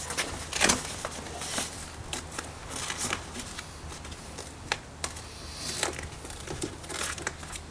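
Plastic water shield on a car's inner door being peeled back from its sticky sealant, crinkling and crackling irregularly with a few sharper snaps.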